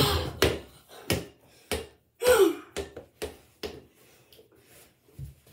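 Indoor mini basketball play: a string of sharp thuds and knocks as the small ball strikes the door-mounted hoop, the door and the floor, the last few bounces coming closer together. A brief vocal exclamation comes about two seconds in.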